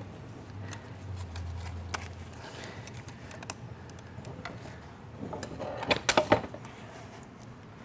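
Small metal clicks and clinks as a washer and the reverse drum hub are worked loose by hand inside an automatic transmission case, the parts jammed where rubbing has flared the aluminium. A quick run of sharper clicks comes about five to six seconds in.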